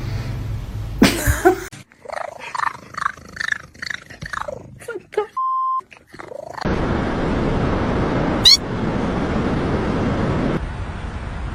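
A cat making a run of short calls that bend up and down in pitch, then a short steady beep, then a stretch of even hiss with one sharp chirp in it.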